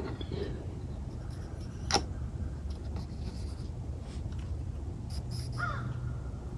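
Small scratching and rubbing of metal parts as a wrist-pin circlip is worked into a piston, with a sharp click about two seconds in and a few lighter ticks, over a low steady hum.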